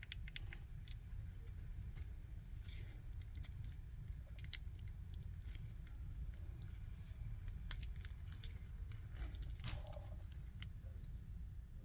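Scattered light clicks and small rattles from handling the opened plastic router and its battery wires, over a steady low hum.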